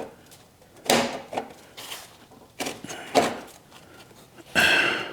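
Steel pieces being knocked and shifted on a steel welding table while being lined up for a tack weld: a few short clanks and scrapes, the last and loudest one ringing.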